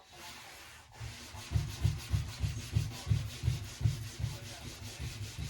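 Rhythmic rubbing or scrubbing strokes, about three a second, each with a dull thump under a scraping hiss, beginning about a second and a half in.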